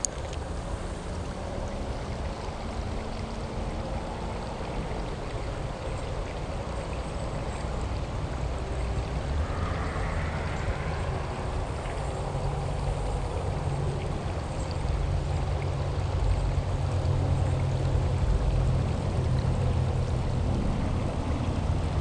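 Creek water running steadily, with a low rumble that grows a little louder through the second half.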